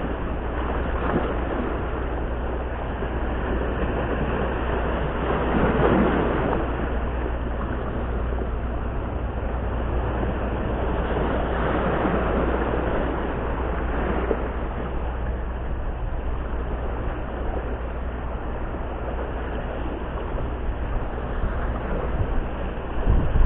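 Sea waves washing and breaking over shoreline rocks, surging louder about six seconds in and again around twelve seconds, over a steady low rumble of wind on the microphone.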